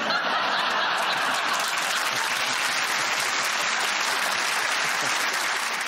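Studio audience applauding, breaking out at once and holding steady.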